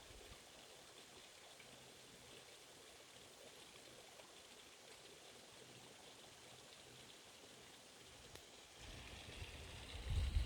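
Faint, steady hiss of flowing water. A louder low rumble comes in near the end.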